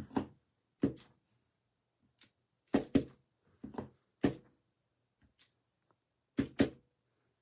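Clear acrylic stamp block knocking down on paper at a craft table as a snowflake stamp is inked and pressed onto an envelope: a series of sharp knocks, several in quick pairs, about one every second.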